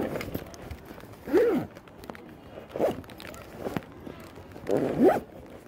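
Gear being packed into a backpack: a series of handling knocks and rustles with zipper pulls, about five separate strokes, the loudest about a second and a half in and near the end.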